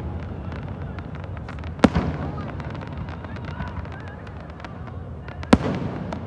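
Aerial fireworks going off: two loud booms, about two seconds and five and a half seconds in, with a run of small crackles between them.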